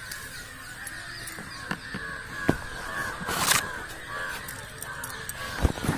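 Crows cawing repeatedly, with a few knocks and rubbing from the handheld phone being moved, the loudest about three and a half seconds in.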